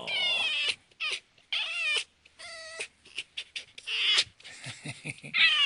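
Tame red fox vocalizing: about six short, high-pitched whining calls in a row, each with a wavering, warbling pitch, separated by brief gaps.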